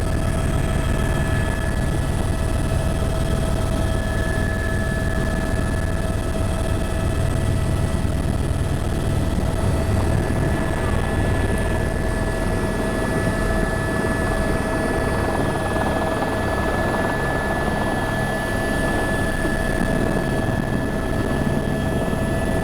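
Helicopter running steadily in flight: a heavy low rotor rumble with a few steady whining tones above it.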